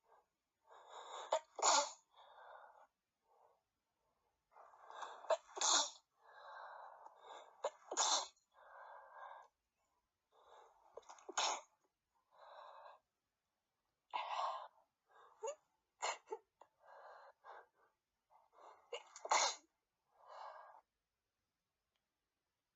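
A person sneezing repeatedly, about six sneezes in a row, each after a few sharp in-breaths.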